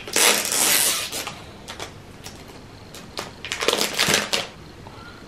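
Clear plastic shrink-wrap being torn and peeled off a phone box, crinkling: a loud burst of crinkling in the first second, scattered crackles after, and another stretch of crinkling about three and a half to four and a half seconds in.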